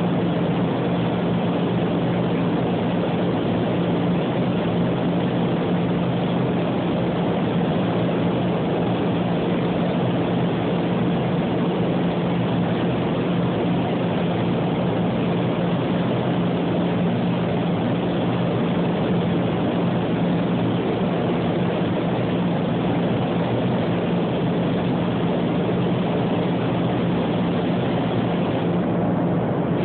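Steady drone of a spray paint booth's ventilation fans running, a constant low hum under an even rush of moving air.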